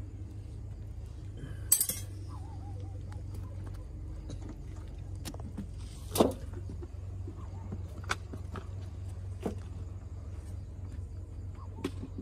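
Dishes and utensils clinking and knocking as they are handled, in scattered single strikes, the loudest about two seconds in and again about six seconds in, over a steady low hum.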